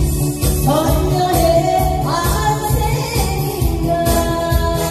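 A woman singing a Korean trot song live into a handheld microphone over amplified musical accompaniment with a steady beat. Her voice comes in about half a second in, with long held notes.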